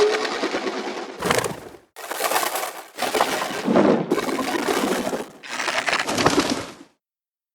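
Horror jump-scare sound effects: a run of crunching, crackling noise bursts, each about a second long, with the first fading out early on and four more following close together. The last burst cuts off suddenly about seven seconds in.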